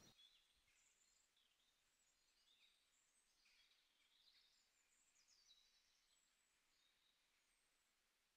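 Near silence, with faint, high, short chirps of distant birds scattered throughout.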